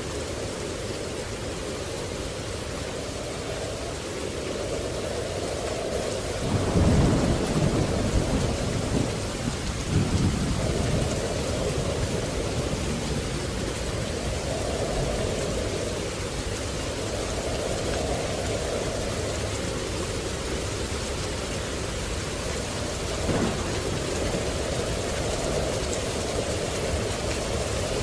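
Steady rain falling, with a loud peal of thunder rumbling from about seven to eleven seconds in and a brief, sharper clap later on.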